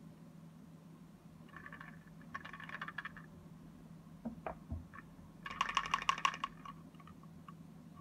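Thin wooden panels of a Japanese yosegi puzzle box clicking and clattering against each other as they are handled, in two bursts of rapid small clicks, the second louder, with a couple of soft knocks between them.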